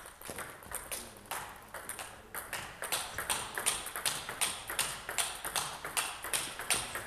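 Table tennis rally: the ball clicking off the bats and the table in quick alternation, several knocks a second, with both players trading topspin strokes close to the table.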